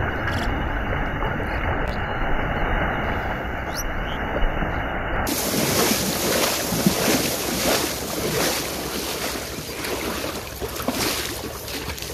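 Water splashing and churning as a person wades fast through shallow river water, legs throwing up spray. From about five seconds in it breaks into separate splashes.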